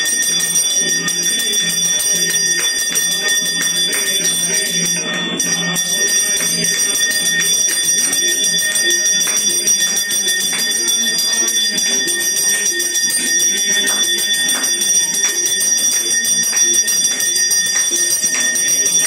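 Puja bells ringing continuously for the aarti: rapid, repeated strikes over a steady high ringing tone that does not let up.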